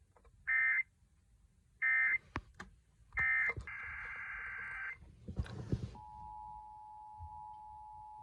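Emergency Alert System end-of-message data bursts: three short warbling digital squawks about a second apart, then a longer one, with a few clicks. About six seconds in, the EAS two-tone attention signal starts and holds steady, announcing the next alert.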